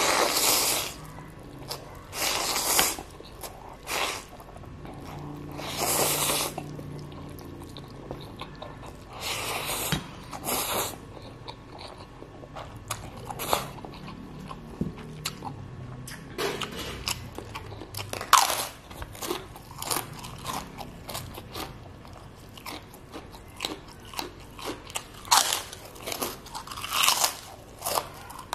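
Close-miked eating: instant fried noodles (Indomie goreng) slurped up in several loud half-second-to-one-second pulls, with wet chewing and lip smacks between them as pieces of tekwan fish cake are bitten and chewed.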